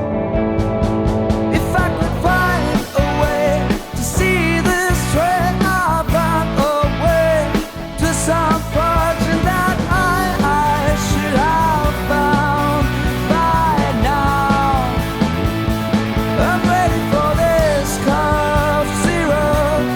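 Rock band playing an instrumental break: drums and bass under a lead guitar line of bending, sliding notes, with the full band coming in on quick drum hits at the start.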